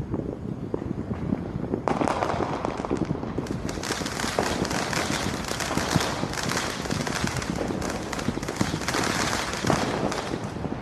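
Fireworks crackling in a dense, rapid stream of small pops. About two seconds in, the crackle turns much louder and sharper.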